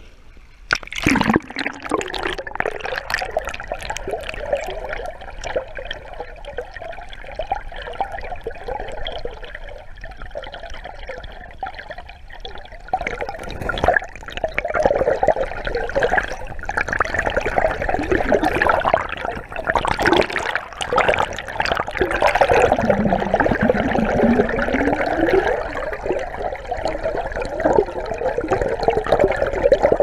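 River water gurgling and swirling, heard with the camera held in the water, with a sudden louder rush about a second in.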